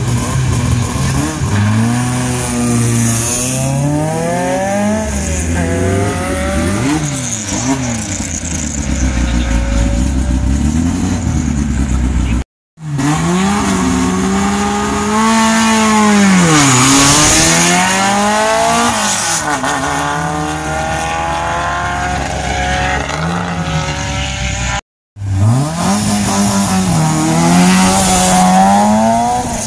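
Small race cars' engines revving hard at a hillclimb start line and accelerating away, in three clips cut one after another; in each the engine pitch climbs and falls several times with the revs and gear changes.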